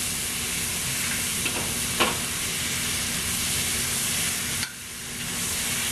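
Chicken and vegetables sizzling in a hot wok while being stirred and tossed with a metal ladle and spatula, with a couple of sharp clinks of metal on the wok about two seconds in. The sizzle drops away suddenly about three-quarters through and builds back.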